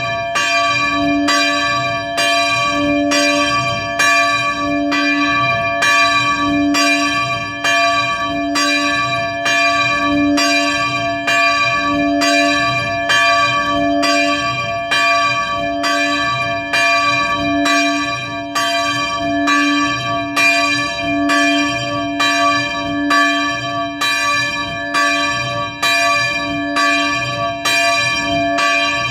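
Church bells swinging and ringing for the evening prayer bell (Gebetsläuten). Clapper strikes come in an even, steady rhythm, and the bell tones ring on between them.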